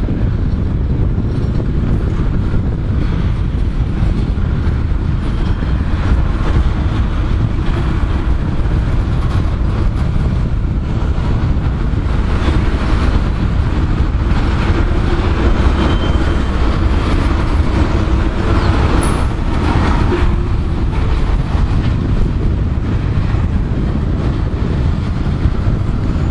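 Railroad tank cars of a long freight train rolling past close by, steel wheels running on the rail with a steady sound.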